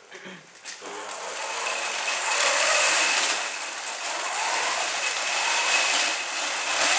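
Electric drive motors and gearboxes of a mecanum-wheel robot drivebase whining as the robot drives across carpet. It is faint for about the first second, then gets louder, with a steady high whine from about two seconds in.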